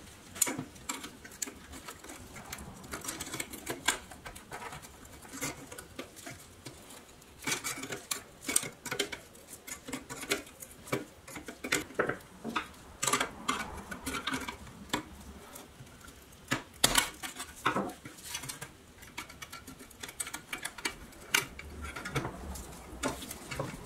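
Irregular clicks, clinks and light scrapes of a thin sheet-metal toy truck body being handled and worked by hand on a wooden bench, fingers pushing at its rusted tin battery retainer.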